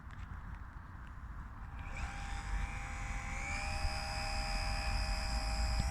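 Electric motor and propeller of a HobbyZone Super Cub S RC plane starting to whine about two seconds in, its pitch rising briefly and then holding steady as it is throttled up for takeoff, over a low rumble.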